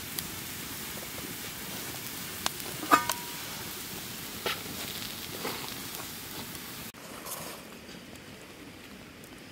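Food sizzling in a pan, with a few sharp clinks of a metal utensil, one ringing briefly about three seconds in. The sizzle cuts off suddenly about seven seconds in, leaving a fainter hiss.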